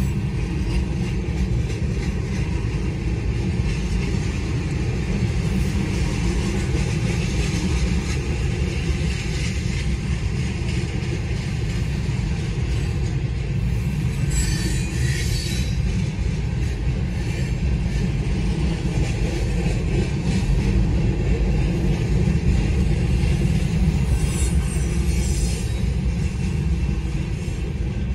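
Freight cars of a manifest train rolling past a grade crossing, a steady low rumble of steel wheels on the rails. Brief higher-pitched wheel noise comes through twice, about halfway and near the end. Heard from inside a car.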